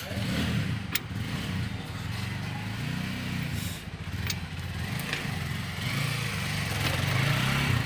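A vehicle engine running steadily, its pitch rising and falling a few times, with a few sharp clicks over it.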